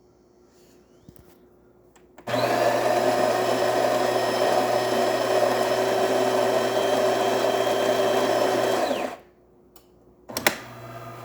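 DeLonghi Magnifica's built-in burr grinder grinding beans for a shot: a loud, steady whir starting about two seconds in and lasting about seven seconds before it stops. About a second later a sharp click, then a quieter steady hum as the machine moves into brewing.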